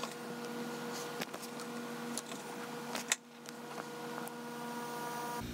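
Steady electrical hum of mains-powered bench equipment, heard as several steady tones together, with a few sharp clicks, played back sped up with the time-lapse; the tones stop near the end.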